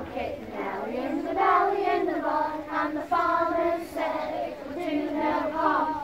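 Group of young children singing a campfire song together, with long held notes.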